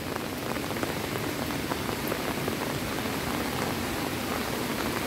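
Steady heavy rain, with many separate drops pattering on wet surfaces.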